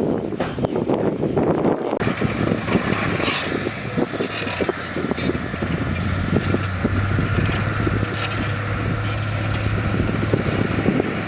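Heavy diesel earthmoving machinery running steadily, with a low engine drone and irregular clanks and knocks from the work.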